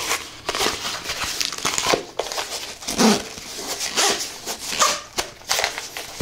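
Fingers scratching, rubbing and flexing a zippered carrying case with a mesh fabric cover: irregular scratchy crinkling and clicks, close to the microphone. There is one louder, lower-pitched sound about halfway through.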